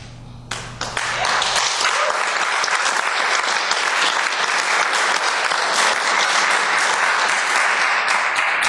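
Audience applauding: a couple of single claps, then full, steady applause from about a second in.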